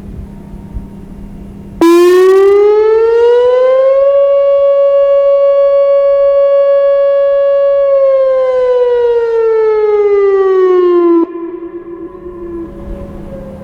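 Whelen WPS-2805 electronic warning siren sounding a short test. The tone starts suddenly about two seconds in, rises in pitch, holds steady for about four seconds, then falls and cuts off abruptly. A fainter siren tone lingers briefly afterwards.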